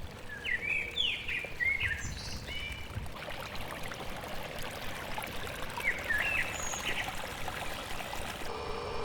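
Birds chirping in short repeated phrases over a steady background hiss.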